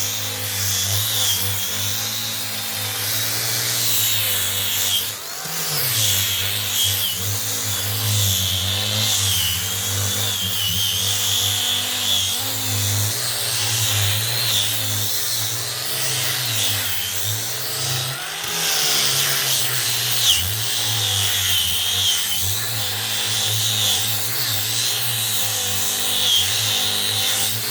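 Electric wood polishing machine running steadily, its motor hum and high whine wavering as it works, with a brief dip about five seconds in.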